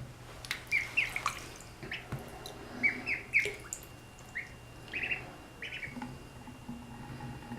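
Two ducklings peeping, a string of short high peeps that each drop in pitch, sometimes overlapping, with light splashing and dripping of water in the sink.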